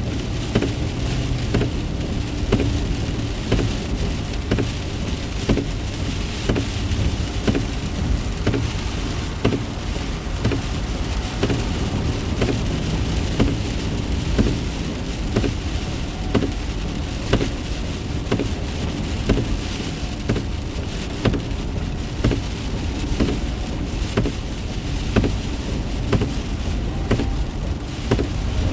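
Heavy rain pattering on a car's windshield and roof, heard from inside the moving car, over the steady rumble of the car on the wet road.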